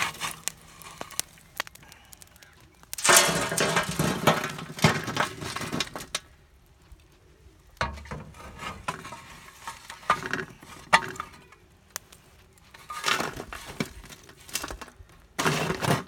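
A steel shovel scraping up burning embers and ash and tipping them onto a wide metal pot lid, the embers clattering and crackling on the metal in about four bursts. The coals are heaped on the lid to give top heat while the sealed pot slow-cooks.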